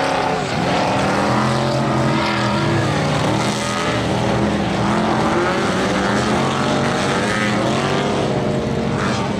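Engines of several stripped-down racing combine harvesters running together, revving up and easing off so their pitches rise and fall over one another.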